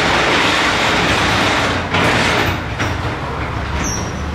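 Sectional garage door rolling up on its metal tracks, a steady loud rumble with a knock about two seconds in, then the rumble dies away to a low hum.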